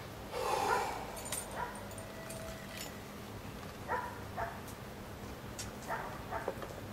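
A brief rustle about half a second in, then several short, faint yelping animal calls, a second or two apart.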